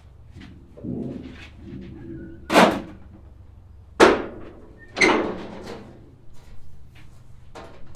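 Three loud knocks, each with a short ring, coming about a second apart, after a stretch of scraping and handling noise.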